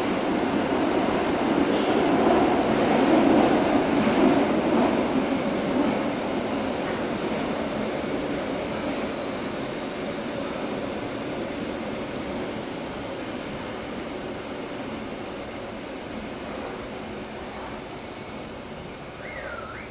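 Bucharest metro train running through the tunnel, heard from inside the car: a steady rumble of wheels and running gear that grows gradually quieter as the train slows, with a short squeal near the end.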